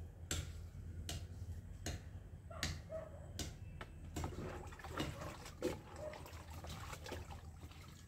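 Long-handled ladle dipping and sloshing liquid in a plastic bucket, with scattered sharp knocks of the ladle against the bucket.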